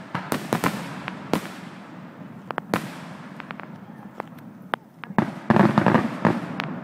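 Aerial fireworks shells bursting with sharp bangs, a few spaced out at first, then a dense rapid run of cracks about five seconds in.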